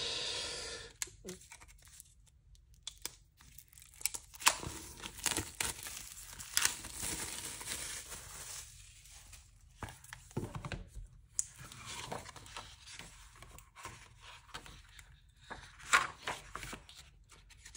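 Packaging crinkling and rustling as a diary is taken out of its opened wrapping, with scattered sharp clicks and taps from handling. The sounds come and go in spells, with short quieter gaps between them.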